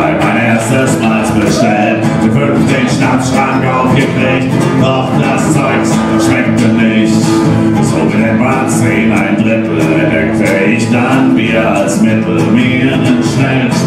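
Acoustic guitar strummed in a steady rhythm, played live on stage by a solo performer.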